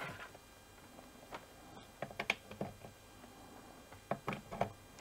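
Faint, scattered clicks and rustles of USB cables being handled and plugged into a multiport USB charging station, in small clusters about two seconds in and again about four seconds in.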